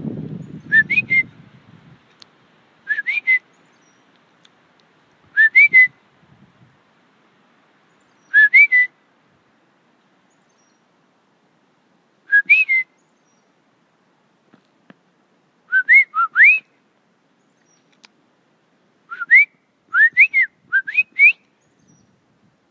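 A person whistling short rising notes in pairs and triplets every few seconds, with the groups coming closer together near the end. A brief low rustle at the start.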